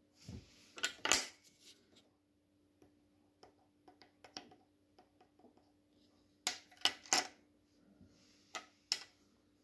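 Sharp clicks and taps of hard plastic and metal: a flat-blade screwdriver prying at the immobiliser transponder chip holder inside a Mitsubishi key shell, and the plastic shell being handled on a glass tabletop. The loudest cluster of clicks comes about a second in, light scattered ticks follow, and two more clusters come near the end.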